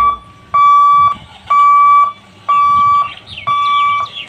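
Railway level crossing warning buzzer beeping about once a second. Each beep is a steady, high electronic tone lasting about half a second. It sounds while the boom barriers are being raised.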